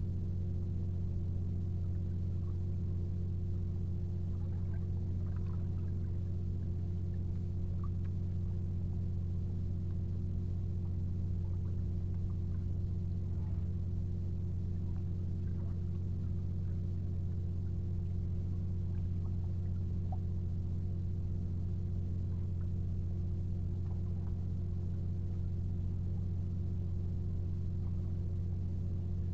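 Steady low hum, unchanging throughout, with a few faint scattered ticks above it.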